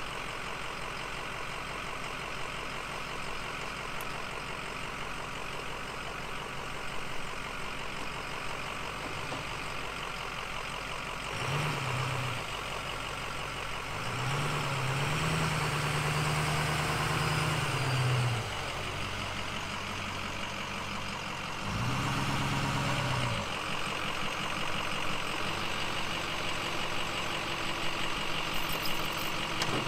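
Ford Super Duty tow truck's engine idling, revving up three times: briefly about twelve seconds in, held for about four seconds from about fourteen seconds, and again about twenty-two seconds in, as the wrecker is moved and repositioned on the icy road.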